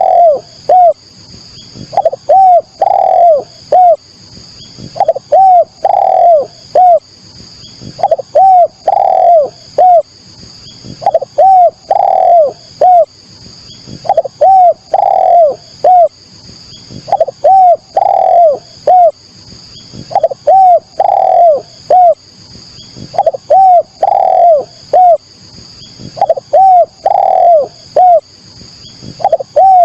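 Spotted dove (derkuku/tekukur) cooing: a short phrase of about four hooting notes, the third longest and loudest, repeated at an even pace about every three seconds. It is a looped lure call used to draw wild doves or get them calling.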